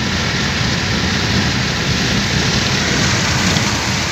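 Steady rush of wind and road noise inside a moving car with the side window rolled down, tyres hissing on a wet highway over a low rumble.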